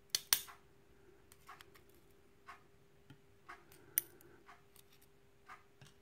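Small metallic clicks and ticks of steel tweezers working pin springs out of a euro lock cylinder one at a time: two sharp clicks just after the start, then scattered faint ticks with a sharper one about four seconds in. A faint steady hum runs underneath.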